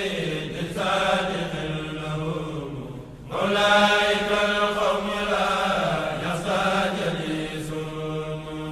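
Religious chanting in long, drawn-out sung phrases, with a short break for breath about three seconds in.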